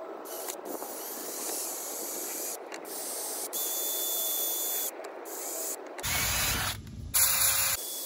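Cordless impact wrench run in several short trigger bursts, driving the mounting bolts of a new front wheel hub assembly through the steering knuckle. The bursts grow louder and fuller about six seconds in.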